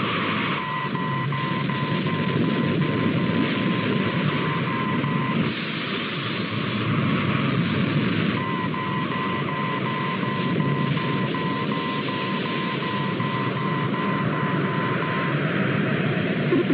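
Spacecraft sound effect: a steady rushing rocket-engine noise, with a high electronic warning alarm pulsing rapidly over it in two long stretches about three seconds apart. The alarm signals that the ship's controls and retro rockets have failed.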